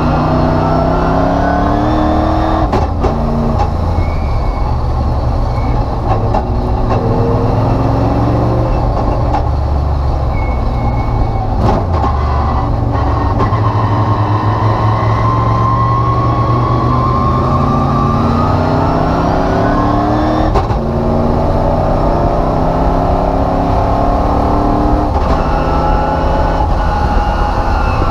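IROC Camaro race car's engine heard from inside the caged cabin under hard acceleration, pitch climbing in long pulls. It drops sharply at each shift or lift, about 3, 12, 21 and 25 seconds in, over steady road and wind noise.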